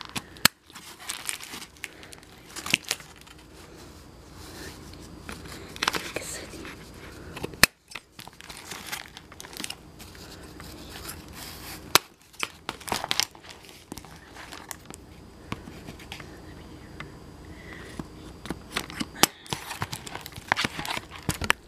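Toy packaging of paperboard and taped plastic crinkling and tearing as it is cut and pulled apart by hand and with scissors. Several sharp clicks stand out among the crinkling.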